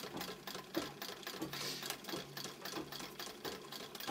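Singer sewing machine running steadily, stitching a fur trim strip onto a sheepskin vest: a rapid, even clatter of the needle mechanism over a low hum.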